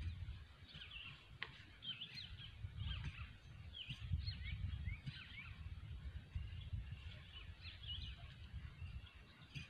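Small birds chirping and calling again and again over a low, uneven rumbling noise, with one sharp click about a second and a half in.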